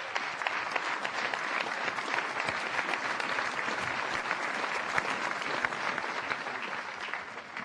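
Crowd applauding, many hands clapping together, fading away near the end.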